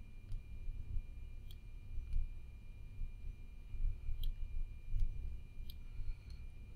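Computer mouse clicking: a handful of short, sharp clicks spaced a second or more apart, over a low background rumble and a faint steady high-pitched whine.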